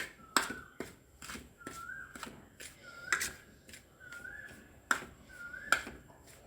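A spoon stirring ground herbal powder in a container, tapping and scraping against its side. It makes sharp clicks about twice a second, most followed by a brief rising squeak.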